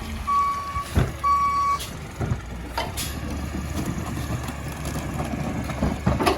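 Garbage truck's backup alarm beeping twice, then stopping, over the truck's engine running. A few sharp clanks come through, one just before the end.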